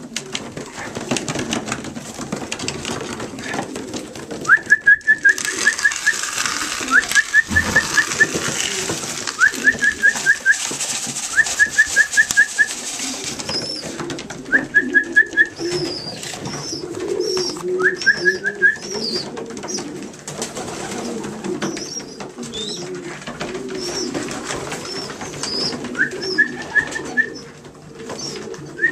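Young racing pigeon squeakers squeaking in short runs of five or six quick rising notes, the runs several seconds apart, over a steady low cooing rumble from the pigeons. A hissing rustle runs under them for several seconds in the first half, and faint high chirps come in from about halfway.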